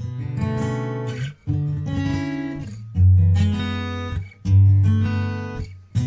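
Acoustic guitar music, chords strummed and let ring, with a new chord about every second and a half.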